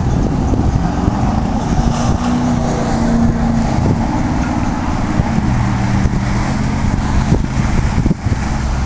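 Car engines running at low revs, their low hum shifting in pitch a couple of times.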